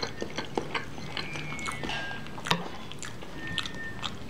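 Close-up chewing and wet mouth sounds of someone eating gado-gado, with many small scattered clicks and one sharper click about two and a half seconds in.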